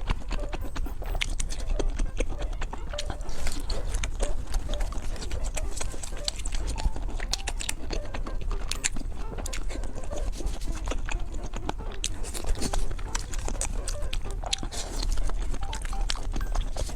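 Close-miked eating sounds of chicken curry and rice: chewing with many sharp, wet mouth clicks and smacks, going on irregularly throughout.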